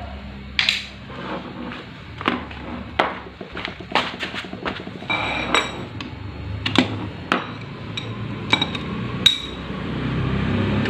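Metal hand tools and steel engine parts knocking and clinking together at an irregular pace, a dozen or so sharp strikes, some with a brief metallic ring.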